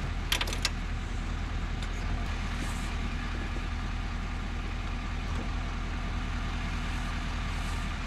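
A vehicle engine idling steadily, a low even hum, with a few light clicks about half a second in.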